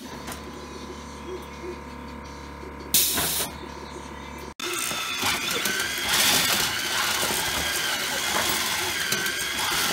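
FRC robot's power cell conveyor running, its motors giving a wavering whine over a busy mechanical clatter as foam power cells are fed through. Before that comes a steady electrical hum with one short, loud hiss about three seconds in.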